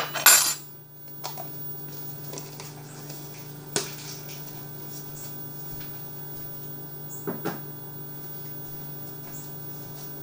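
Kitchen dishes and utensils being handled: a short noisy rattle at the start, then a few scattered clinks and knocks over a steady low hum.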